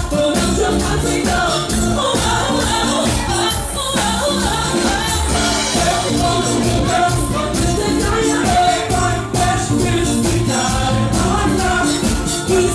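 Live cover band playing a dance-pop song with drums, bass, guitar and keyboard, a singer's voice and light hand percussion over a steady beat.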